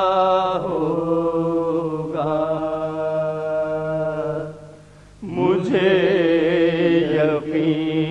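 Men's voices chanting an Urdu salam, a Shia devotional elegy, in long drawn-out notes, with a short break a little past halfway before the chant resumes.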